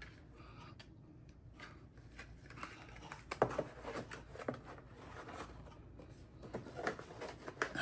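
Quiet rustling and scattered light clicks and knocks as wooden-handled shoe brushes from a shoe shine kit are handled, with a brief flurry of sharper clicks about three and a half seconds in.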